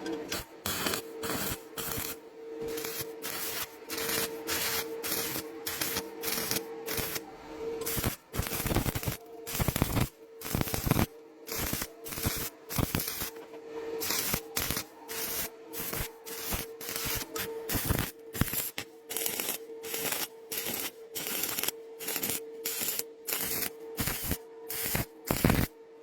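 Stick welding arc crackling in short bursts, about two a second, as rebar is welded to thin metal. A steady low hum runs underneath.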